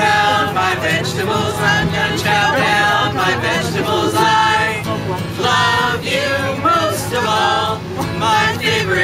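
A group of voices singing a song together, accompanied by a strummed acoustic guitar and an accordion.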